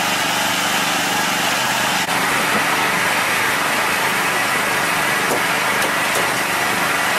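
Small engine running steadily at a constant speed, with a brief dip about two seconds in.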